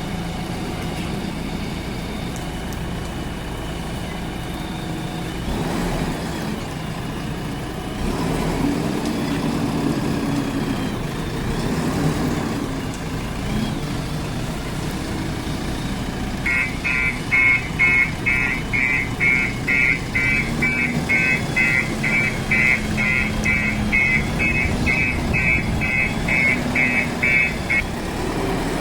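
JCB 3DX backhoe loader's diesel engine running, its pitch rising and falling as it works. About halfway in, a high reversing beeper starts, about two beeps a second, and stops shortly before the end.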